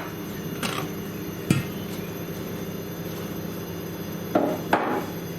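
Plates being swapped and handled on a kitchen worktop: a few sharp knocks and clinks, one about a second and a half in and two close together near the end, over a steady low hum.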